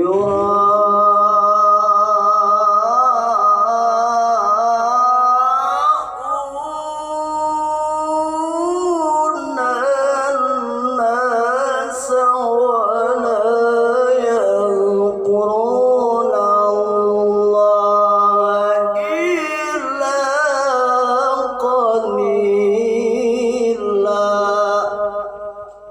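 Male qari reciting the Quran in the melodic tilawah style, drawing syllables out into long, wavering, ornamented melismas in a high, full voice. The phrase starts sharply, with brief dips about six seconds in and again around ten and fifteen seconds, and fades out just before the end.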